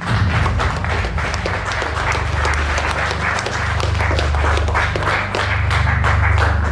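Background music with a deep bass line, over rapid irregular clapping.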